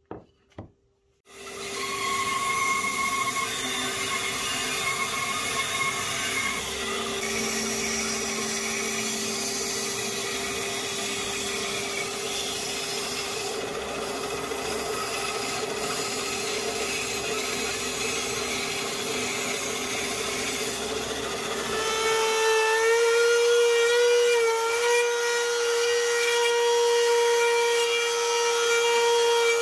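Two short clicks, then a bandsaw running and cutting through a thick wooden block. About two-thirds of the way through, the sound changes to a handheld trim router's high, steady whine as its bit routes out a pocket in the wood.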